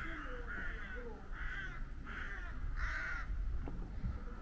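A crow cawing repeatedly, about five calls spaced half a second to a second apart.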